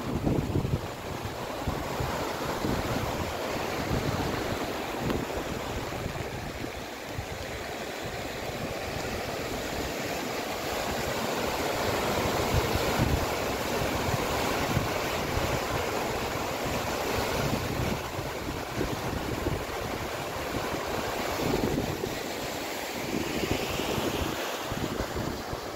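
Muddy floodwater of a swollen river rushing steadily, a continuous noise of water with no pitch, with wind buffeting the microphone in uneven gusts.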